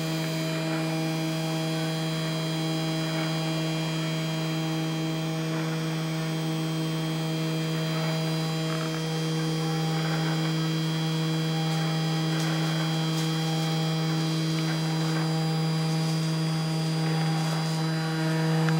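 Small DC spindle motor of a homemade desktop PCB milling machine running at a steady pitch while milling, a constant hum with a stack of overtones. A few faint ticks come in during the second half.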